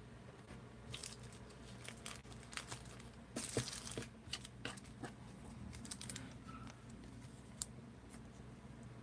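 Faint crinkling and rustling of thin plastic as a trading card is handled and slid into a clear plastic card sleeve. There are scattered small rustles and clicks, with the loudest crinkle about three and a half seconds in.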